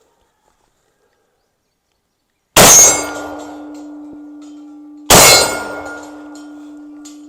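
Two shots from a .50-110 black-powder double rifle, about two and a half seconds apart, each followed by a steady ringing from the steel target plate being hit.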